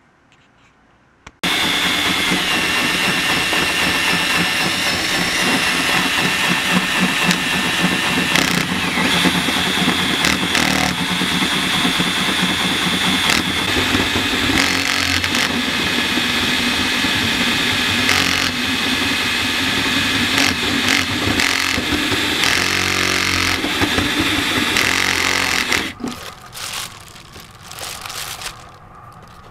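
Cordless drill driving a bi-metal hole saw through the van's sheet-metal body: a loud, steady grinding with a high squeal of the teeth on metal. It starts about a second and a half in and stops a few seconds before the end, followed by a few short bursts.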